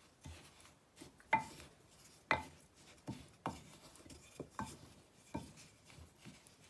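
Wooden spatula stirring a dry ground spice blend in a glass measuring jug: soft scraping through the powder, broken about once a second by sharp taps of the spatula against the glass, several of which ring briefly.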